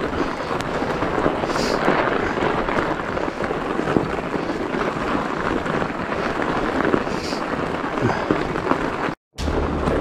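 Continuous rough rumble of a fat bike ridden over a snowy trail: tyre noise in the snow, small knocks from the bike and wind on the camera microphone. It cuts out briefly about nine seconds in and resumes with a steadier low hum.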